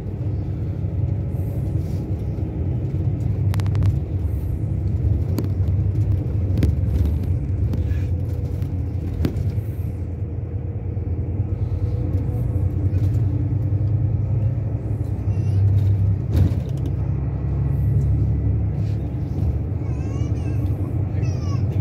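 Cabin noise inside a moving vehicle at road speed: a steady low rumble of engine and tyres, with a few sharp clicks or rattles scattered through it.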